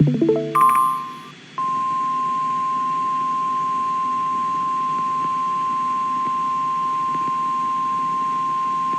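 A quick run of rising electronic beeps, then about one and a half seconds in the NOAA Weather Radio 1050 Hz warning alarm tone starts. It is one steady high-pitched tone, the signal that a warning broadcast follows.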